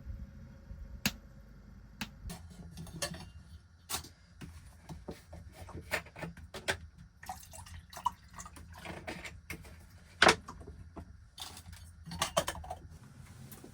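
Irregular clicks, taps and knocks of hard objects being handled, with one louder knock about ten seconds in, over a low steady hum.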